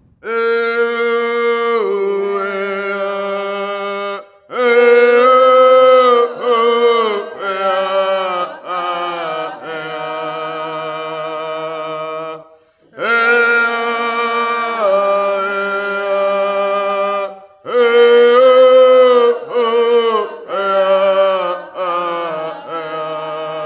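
A single voice singing a chant in phrases of long held notes and slides between them, each phrase about four seconds long with a short break before the next.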